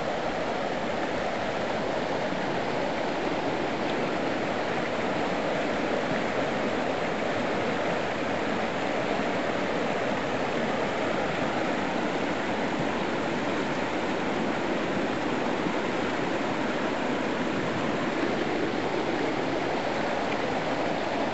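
Creek water rushing, a steady, even rush of flowing water with no breaks.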